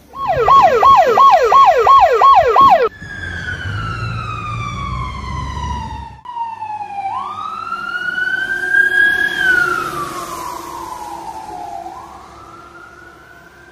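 A fire engine's siren. It gives a fast yelp, rising and falling about three times a second, for roughly three seconds, then changes to slow wails that fall, climb and fall again. A low rumble sits under the first slow wail.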